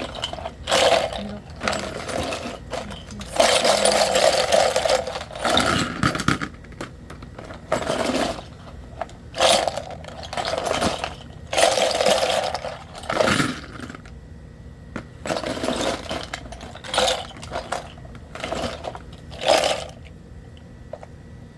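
Square plastic scoop used as a dustpan, scraping along the floor as it scoops up loose contents, which clatter into it. The strokes come one after another, well over a dozen of them, each under a couple of seconds, with short pauses between.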